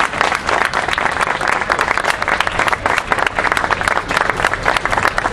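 A crowd applauding, many hands clapping in a dense, continuous patter.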